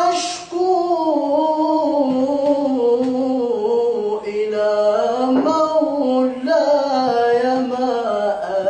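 A man singing an Islamic ibtihal (religious supplication) unaccompanied, holding long drawn-out notes that waver and glide in pitch.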